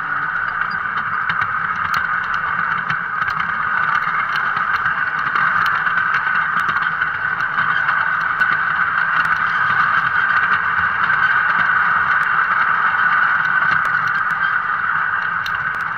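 LGB garden-scale train running on its track, heard from a car of the train itself: a steady rolling hiss and rumble from the wheels and drive, with light irregular clicks.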